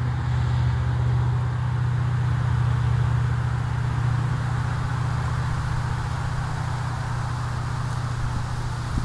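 Steady road-vehicle noise: a car's low engine hum under a band of tyre and road hiss, swelling slightly about three seconds in.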